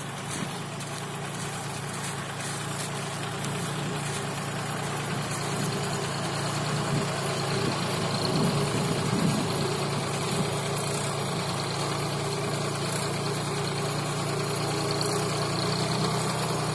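VST Mitsubishi Shakti VT180 mini tractor's diesel engine running steadily under load as it pulls a tine cultivator between crop rows, growing louder over the first several seconds.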